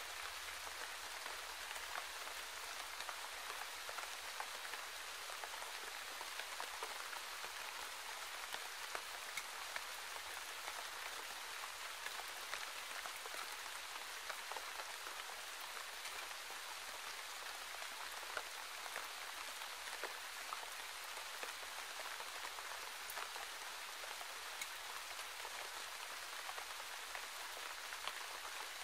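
Steady rain falling: an even hiss dotted with many small, sharp drop ticks.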